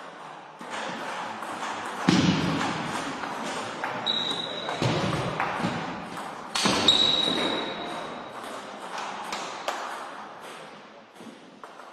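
Table tennis rally: the plastic ball clicking off bats and table in quick, irregular succession, echoing in a sports hall. There are two louder bursts of noise, about two seconds in and again after six, each followed by a brief high squeak.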